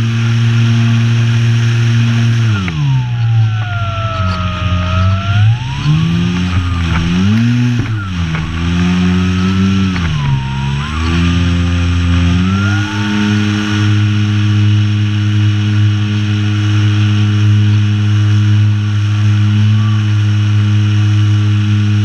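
Electric motor and propeller of an Apprentice S RC trainer plane running in flight: a steady propeller buzz with a high motor whine above it. About three seconds in the throttle comes back and the pitch falls, then it dips and rises several times before settling to a steady pitch from about halfway, and falls again right at the end.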